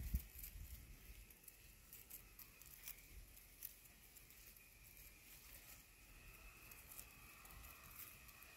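Faint rustling and crackling of a dry weed stalk and its leaves as a kitten bats and chews at it: soft scattered ticks over near silence, with a brief low thump at the very start.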